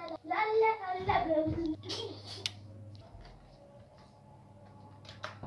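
A child's sing-song voice for about the first second and a half, then a brief rustle, and then a quiet room with a steady low hum and a single sharp click near the end.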